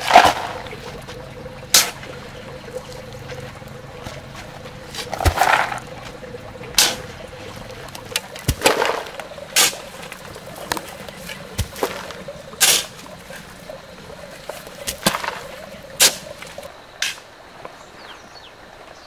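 A shovel scooping and tossing sand onto a heap, with a scrape and a swish of falling sand every second or two. The loudest toss comes right at the start, and the strokes grow fainter near the end.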